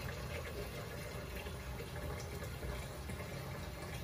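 Steady low rushing background noise with a few faint clicks.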